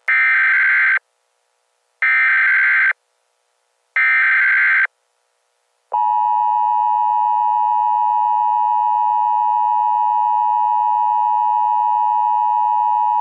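Emergency Alert System tones: three short bursts of SAME header data, about a second each and two seconds apart, then from about six seconds in the steady two-tone EAS attention signal.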